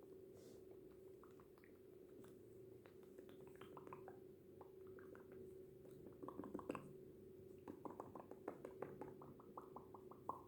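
Tissue paper handled close to the microphone, giving soft popping and clicking sounds, sparse at first and coming in quick clusters in the second half, over a faint steady hum.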